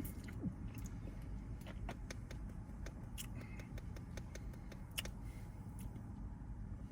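Quiet room background with a low steady hum and a few faint, scattered small clicks and taps, one slightly sharper about five seconds in.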